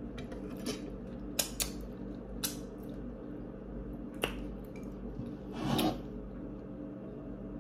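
Close-up eating sounds: a few sharp mouth clicks and smacks while chewing boiled chicken, and a short breathy puff a little before six seconds in, over a steady low hum.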